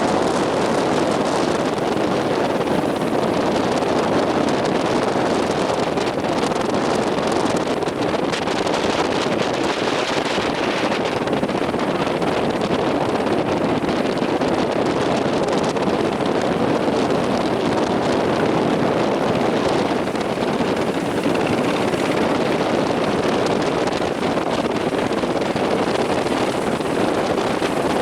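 Strong wind buffeting the microphone over a steady rush of sea and surf, a constant loud noise with no let-up.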